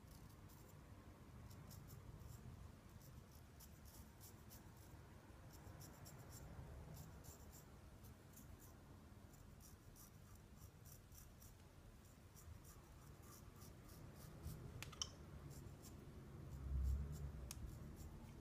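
Riccardo Tonarini Lobster straight razor scraping through lathered beard stubble: a faint, fine crackle of cut whiskers in short runs, with a soft low thump near the end.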